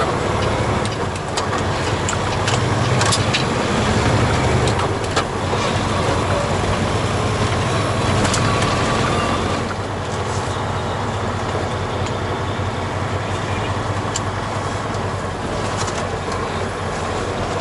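Semi-truck's diesel engine running with road noise, heard inside the cab while driving, with a few short rattles or knocks. The sound drops a little about ten seconds in.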